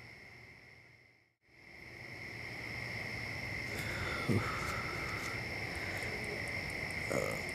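Night-time chorus of crickets trilling steadily at two high pitches, fading out about a second in and back in. A brief soft low sound comes about four seconds in.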